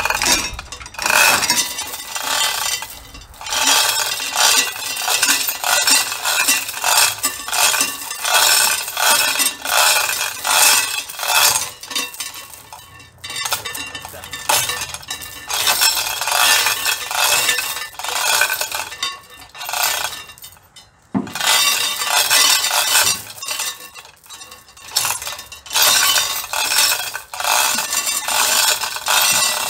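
Steel chain of a manual chain hoist rattling and clinking continuously as it is pulled hand over hand to lower a stack of barbell plates, with a few brief pauses.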